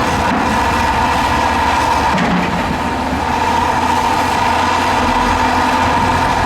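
Heavy earthmoving machine's diesel engine running steadily, with a constant low rumble and a steady higher hum.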